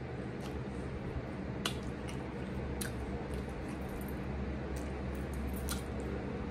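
Chewing a mouthful of soft-shell shrimp taco, close to the microphone: a steady low mouth noise broken by about five sharp clicks and smacks.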